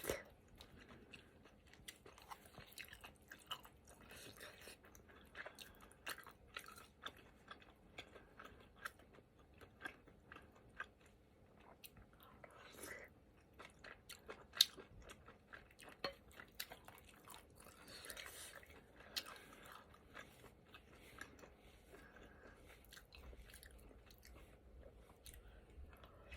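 A person chewing food close to the microphone: a long string of soft, wet chewing clicks and smacks, with one sharper click about halfway through.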